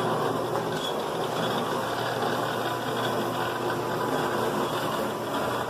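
Seamless gutter machine running, its rollers forming flat aluminum coil stock into gutter: a steady mechanical running noise with a low hum.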